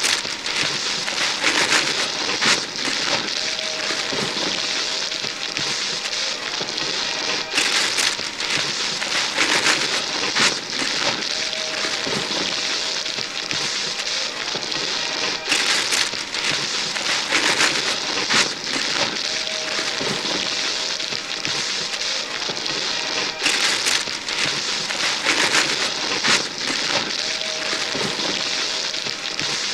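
Wrapping paper being torn and crumpled off gift boxes by hand: a continuous crackling rustle with frequent sharp rips. The same stretch of tearing repeats about every eight seconds.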